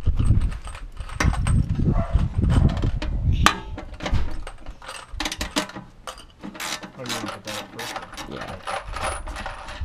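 Ratchet wrench clicking in quick strokes as a nut is run down on the bolt of a metal diffuser mounting bracket. Low knocks and rumble of the parts being handled come first, then a sharp click about three and a half seconds in.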